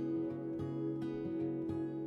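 Background music: solo acoustic guitar, plucked notes over a steady low tone.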